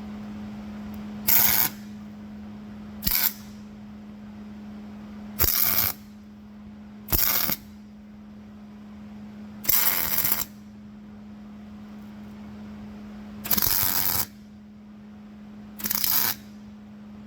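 Electric arc welder striking a series of short tack welds on steel angle iron: seven brief crackling sizzles, each lasting under a second, spaced a couple of seconds apart. A steady low hum runs underneath.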